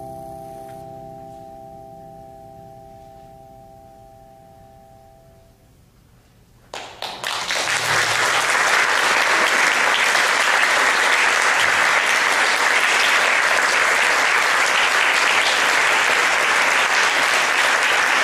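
A final held chord from the mallet-percussion duo rings and slowly fades away over the first five seconds or so. After a brief hush, an audience starts applauding about seven seconds in and keeps up steady applause.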